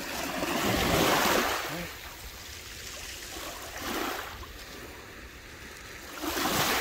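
Small waves washing in over shingle at the water's edge, three washes, the first the loudest.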